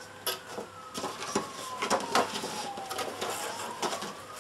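Printed leaflets and a cardboard box being handled: rustling paper with light taps and knocks as items are set down and taken out of the box.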